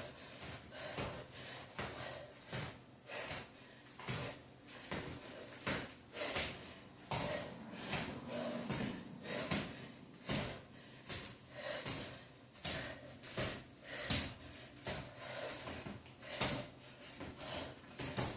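A person working out in a crab position: hard rhythmic breaths and sneakers tapping a hardwood floor, a steady beat of short sounds about three every two seconds.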